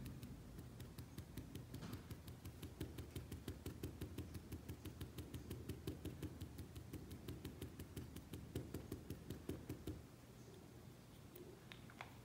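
A No. 10 paintbrush tapping rapidly on fabric as it stipples green paint: an even, faint patter of about six light taps a second that stops about ten seconds in.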